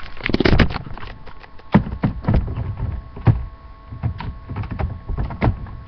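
Irregular knocks, thuds and rustling of objects being picked up and moved about close to the microphone.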